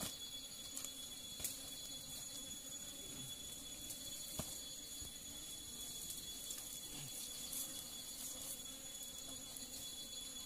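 Steady high-pitched drone of forest insects, with a few faint taps and rustles as pieces of butchered meat are handled on banana leaves.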